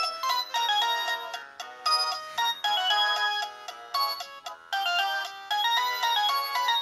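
A preloaded ringtone of a Samsung Galaxy J7 (J700) phone playing: a bright electronic melody of quick, clear notes.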